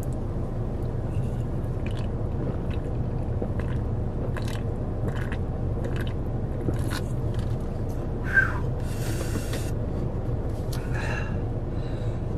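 A person drinking from a can, with small mouth clicks and swallowing sounds and a breathy exhale lasting about a second near nine seconds in, over a steady low hum.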